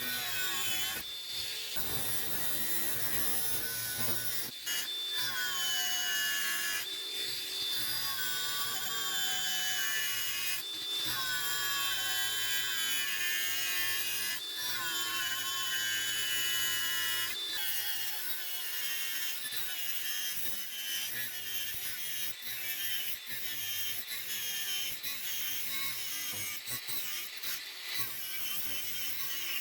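A power tool running at high speed and grinding into a steel saw blade, its high whine sagging in pitch as it bites and picking up again, broken by abrupt cuts every few seconds.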